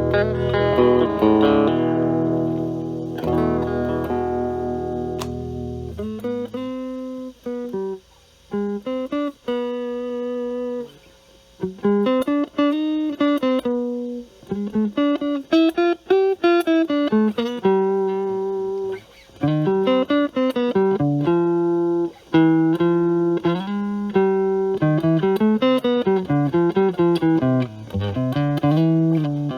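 Fender Stratocaster with single-coil pickups played through a Metal Pedals Rawhide overdrive pedal into a Marshall Valvestate amp's clean channel, the drive cleaned up to a nearly clean tone. A chord rings out for about six seconds, then single-note lead lines follow with string bends and vibrato.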